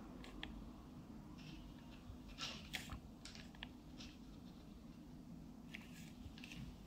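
Hot glue gun being squeezed to lay a bead of melted glue: faint, scattered small clicks and crackles.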